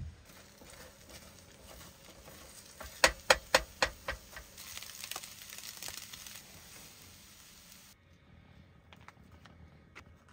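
Eggs frying in a pan with a light sizzle, with a quick run of four or five sharp clicks about three seconds in.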